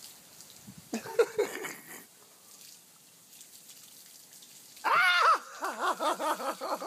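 Garden hose spraying water that splatters faintly onto patio stones. A short vocal sound comes about a second in, and near the end a woman cries out "Ah!" as the spray reaches her.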